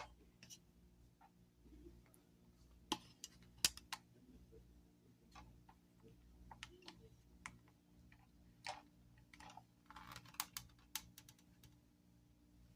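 Faint, irregular clicks and taps of plastic parts being handled and fitted during assembly of a portable shampoo bowl, over a steady low hum.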